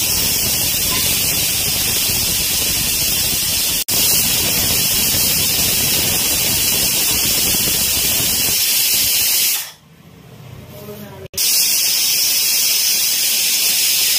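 Pressure cooker whistling: steam jets out of the weight valve in a loud, steady hiss, the sign that the cooker has come up to full pressure. The hiss breaks off for an instant near 4 seconds, fades away about 10 seconds in, and comes back sharply a second and a half later.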